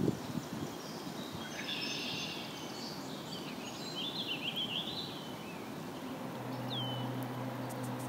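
Wild birds singing outdoors: a quick warbling song about two seconds in, then two short falling chirps near the end. A few low thumps come at the start, and a steady low hum joins about six seconds in.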